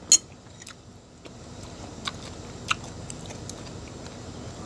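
A person chewing a mouthful of pizza, with a metal spoon clicking against the plate: one sharp clink just after the start and a few lighter clicks about two and three seconds in.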